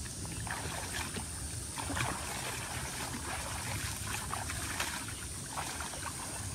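Shallow pond water splashing and trickling lightly as hands scoop and pour it, with a few small splashes over a steady background hiss.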